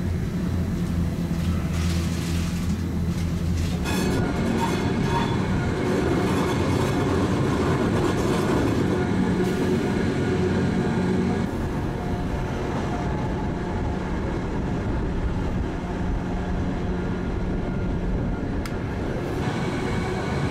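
Gornergrat rack railway's electric train running, heard from inside the passenger car: a steady motor hum with several held tones over the rumble of the running gear on the track. The rumble grows fuller about four seconds in and eases a little after eleven seconds.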